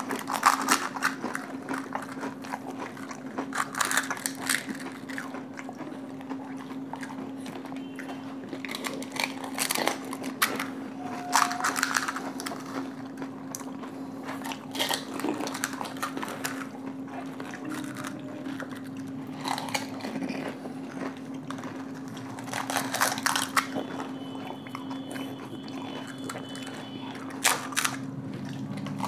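Two people biting into and chewing crisp panipuri puris filled with spiced water, with sharp crunches at irregular intervals every few seconds, over a steady low hum.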